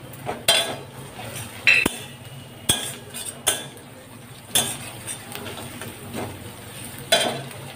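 Metal spatula stirring vegetables in a metal kadai, scraping and clinking against the pan about once a second at uneven intervals.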